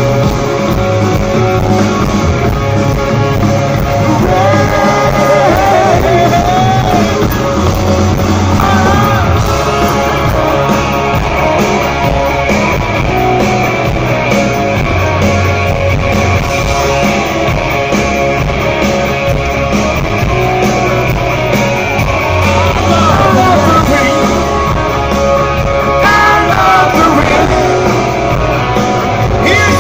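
Live hard rock band playing through a PA, heard from the audience: distorted electric guitars, bass and drums with a wavering lead line and some singing over a steady beat.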